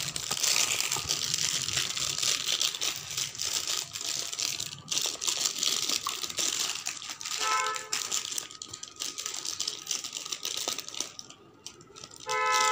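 Clear plastic bag crinkling and rustling as a wristwatch wrapped in it is handled over its cardboard box, thinning out after about seven seconds. A horn-like tone sounds twice, briefly about seven seconds in and again near the end.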